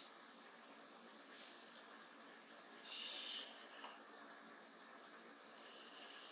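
Pencil compass's lead scraping across drawing paper as it swings a circle: a short faint scratch about a second and a half in, then two longer raspy, slightly squeaky strokes, one around three seconds in and one starting near the end.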